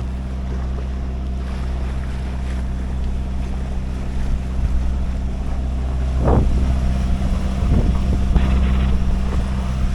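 Boat engine running at a steady pitch, with wind noise on the microphone and a few short knocks or slaps around the middle and near the end.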